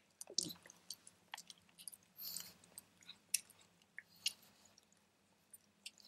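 Pug's mouth and nose noises: scattered small wet clicks of lip-smacking, with a short breathy sniff about two seconds in.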